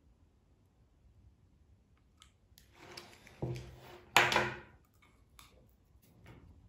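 Handling noise of a plastic tube and a hand tool: a scatter of light clicks and rubbing, with one sharper knock just after four seconds.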